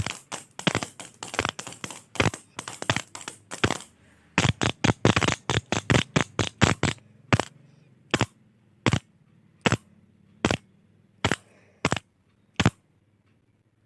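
Retractable ballpoint pen clicking: rapid clicking at several clicks a second with a brief pause partway, then slowing to single clicks about three-quarters of a second apart, eight in all, stopping near the end.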